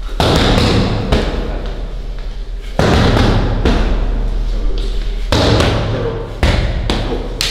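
Punches landing on leather focus mitts: several sharp thuds at irregular intervals, a second or more apart, each ringing on briefly in a small hard-walled corridor.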